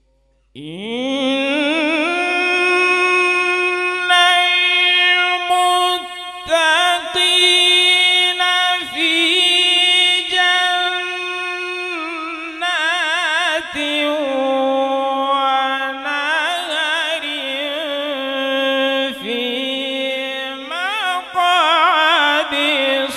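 A male qari reciting the Quran in the melodic mujawwad style over a microphone: a long melismatic phrase that begins with a rising glide about half a second in, with sustained notes and wavering ornaments, breaking only for short breaths.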